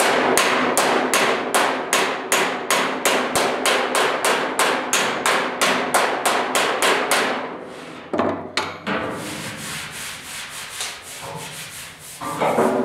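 Body hammer tapping on the sheet-steel inner bed side of a 1972 Ford pickup box. It strikes steadily at about four blows a second for some seven seconds to knock down a spot where the metal has stretched and stands too high, but the tapping does not bring it down. After a single thump, softer rubbing follows as the panel is felt by hand.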